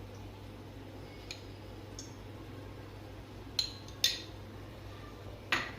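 Kitchen utensils clinking: a couple of faint ticks, then three sharp metallic clinks of a spoon or vessel against a pan, over a low steady hum.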